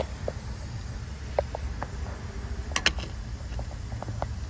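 A small hammer lightly tapping to break a seized water pump loose from the engine: a few sharp, separate knocks, the strongest two close together near three seconds in, over a steady low hum.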